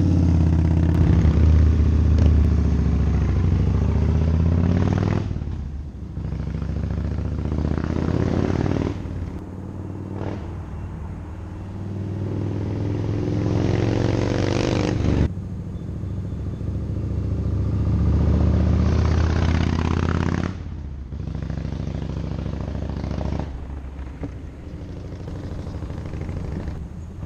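Yamaha Road Star 1600's air-cooled V-twin through a Danmoto Highwayman 2-into-1 exhaust: running loud at a standstill for the first five seconds, then in several short cut-together runs on the road, pulling away with the pitch climbing each time before the sound cuts off.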